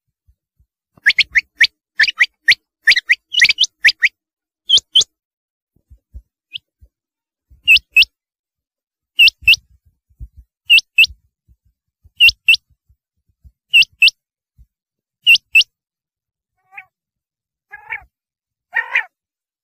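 Rain quail calling: short, sharp, high notes, a quick run of them in the first few seconds, then a pair about every second and a half. Near the end come a few lower, rougher calls.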